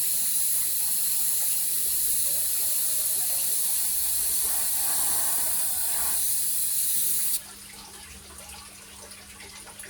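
Airbrush spraying paint: a steady high air hiss that cuts off suddenly about seven and a half seconds in, leaving a faint low hum.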